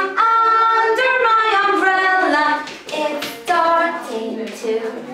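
A woman and young children singing a children's action song together in unison, with a few hand claps.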